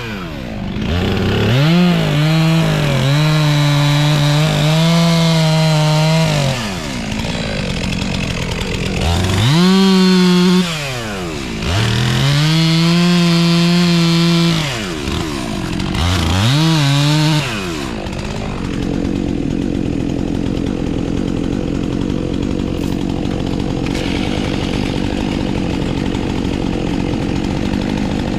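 Two-stroke chainsaw at full throttle cutting through a log in several bursts, its pitch sagging and holding lower under load during each cut. It drops back to a steady idle for the last ten seconds.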